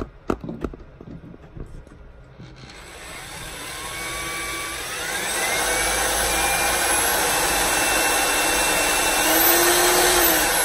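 Corded electric drill boring a hole into an RV screen door frame. A few knocks first, then about two and a half seconds in the motor starts and builds up, its whine rising in pitch before it runs steadily.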